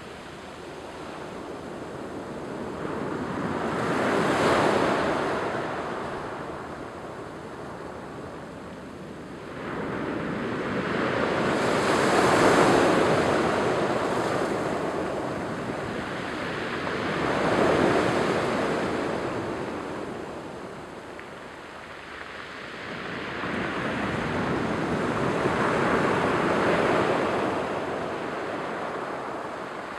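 Surf breaking and washing up over a cobble-and-pebble beach. Four waves come in, each swelling and fading over several seconds.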